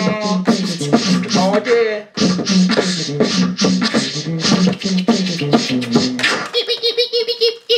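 Live-looped beatboxing: layered vocal drum sounds and a low pitched bass part repeating through loop pedals, with a brief dropout about two seconds in. Near the end the beat stops, and a fast warbling vocal sound over a steady held tone takes over.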